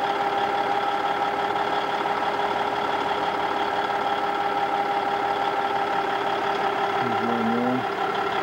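Heavy diesel earthmoving machinery idling steadily, a constant engine drone with a steady high whine over it. A short pitched sound rises and falls about seven seconds in.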